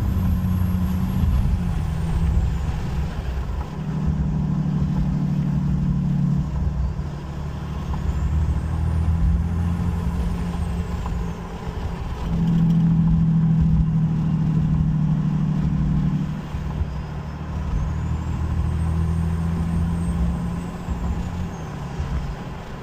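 6.7 L Cummins turbo-diesel pulling under throttle through an open-element Wehrli intake: a deep engine drone that surges and steps as it goes through the gears, with a high turbo whistle rising and falling three times.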